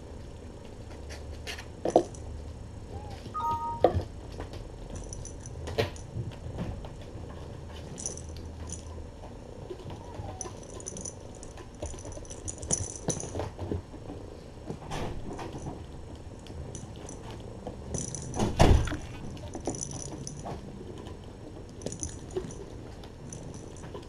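Kittens playing with toys on a floor: scattered knocks and thumps with bouts of light jingling, and a brief squeak about three seconds in. The loudest thump comes about three-quarters of the way through.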